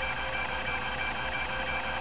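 Epson-Seiko HD-860 20 MB hard drive seeking continuously: its linear stepper drives the rack-and-pinion head actuator back and forth, giving a steady buzzing whine that pulses fast and evenly, over a low hum.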